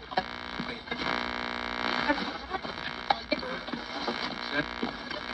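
Steady electrical buzzing hum with many overtones from a radio loudspeaker, starting just after the beginning and holding for about five seconds, with faint broken radio sounds around it.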